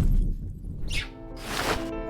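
Soundtrack music with a deep low rumble. Two brief rushing whooshes sound, one about a second in and one near the end, and held chord tones come in about halfway through.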